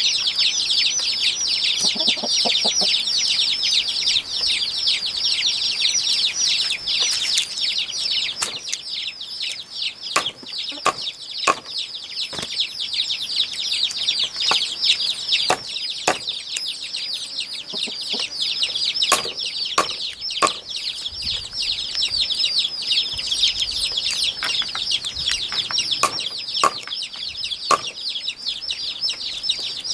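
A dense, unbroken chorus of many quick high chirps, with scattered sharp clicks throughout.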